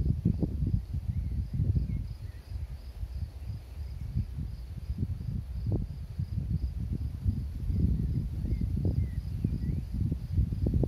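Wind buffeting the microphone in uneven gusts, with an insect in the grass chirping in a steady pulsing rhythm high above it.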